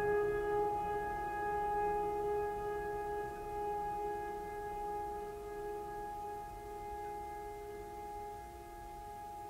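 Background music: a long held chord of several steady tones, like a drone or pad, slowly fading away.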